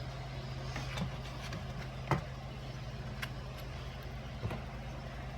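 A steady low mechanical hum, with a few light clicks and knocks from handling, the sharpest about two seconds in.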